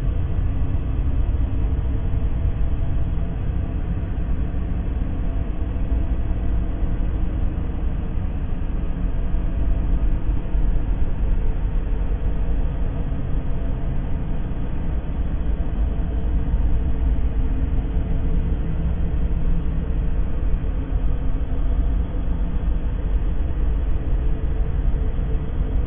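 Steady, unchanging low rumbling noise of a white-noise sleep track, heaviest in the deep bass and with no high end.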